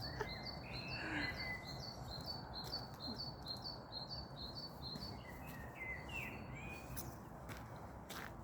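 A bird chirping in a rapid, even series of short high notes, about three a second, over steady outdoor background noise; the chirping stops a few seconds in, with a few longer bird calls around it.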